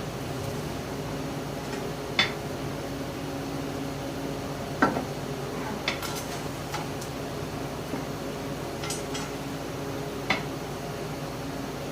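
Scattered light metallic clicks and clinks, about seven in all, of a screwdriver and screws working against a thin sheet-metal belt guard as the screws are started, over a steady low hum.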